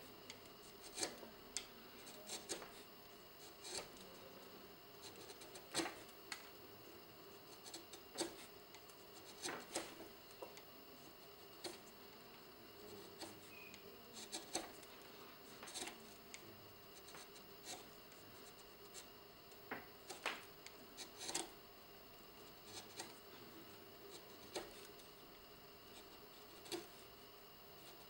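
Hand carving gouge cutting into the wooden front of an organ key: quiet, crisp short cuts and scrapes, irregular and about one a second.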